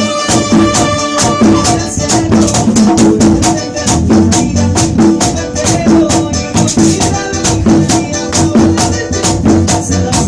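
Live merengue band playing: the güira's metal scraping drives a fast, steady rhythm over tambora and conga drums, with keyboard and trombones.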